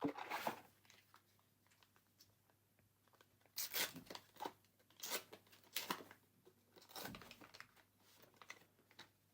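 Foil trading-card booster pack wrapper being torn open and crinkled, in a string of short rips and crackles.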